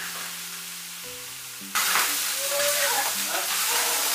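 Soft background music of long held notes over a steady sizzling hiss; the hiss jumps louder a little under two seconds in.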